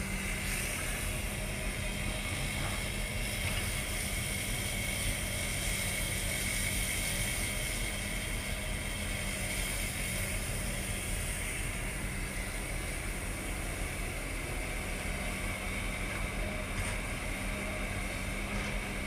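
Diesel engines of a crawler excavator and a dump truck running steadily as the excavator digs and loads soil into the truck, with a constant low hum and a few faint knocks.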